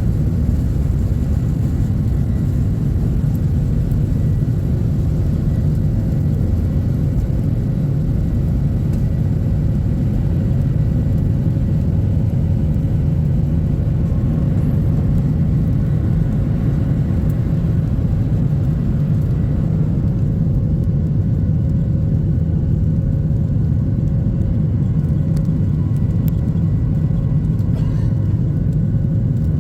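Steady low rumble heard from inside a moving vehicle, with a faint steady hum above it.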